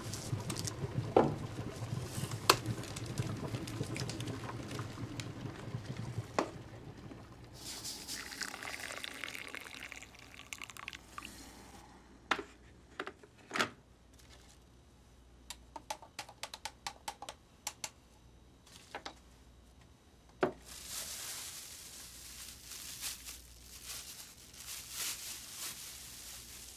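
Quiet household handling sounds: a small packet and a plastic bag rustling, with scattered light clicks and taps. Water is poured into a cup at times.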